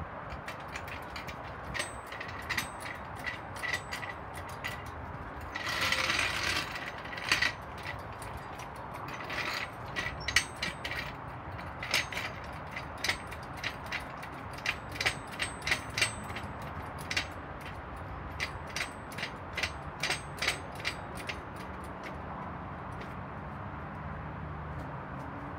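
Mechanical clicking in irregular runs of quick clicks, as from a hand tool being worked, with a short rustling scrape about six seconds in.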